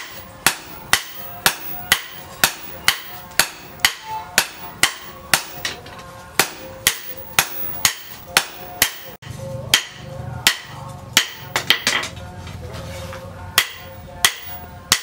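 Hand hammer forging a red-hot leaf-spring steel machete blade on a steel anvil block: evenly paced ringing metal-on-metal blows, about two a second, with a short flurry of quicker blows a little past the middle.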